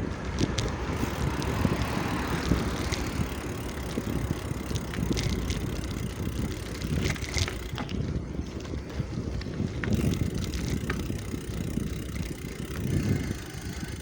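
Bicycle being ridden: a steady rolling rumble with wind on the microphone, and scattered clicks and rattles throughout.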